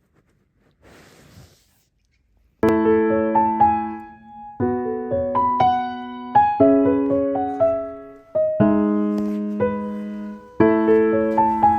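Background piano music, a melody over repeated struck chords, starting about two and a half seconds in after a near-silent pause.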